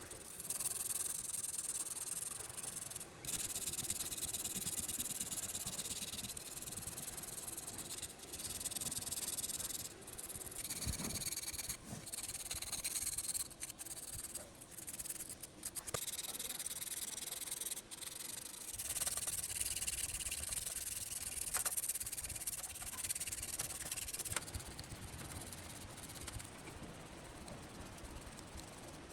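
Hand rubbing or sanding of a surface with an abrasive, in long scraping passes broken by short pauses and sudden cuts.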